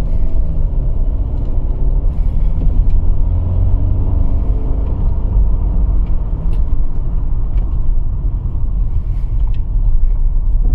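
Mercedes E250 on the move: a steady low road rumble with scattered light knocks and rattles ("khad khad khad") from the suspension near the right-side wheel, the sign of a worn suspension link rod.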